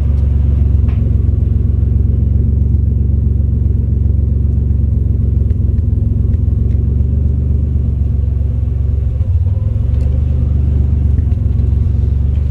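Nissan 300ZX Turbo's turbocharged 3.0 V6 idling steadily through a newly fitted MSA aftermarket exhaust, a steady low rumble that is super quiet.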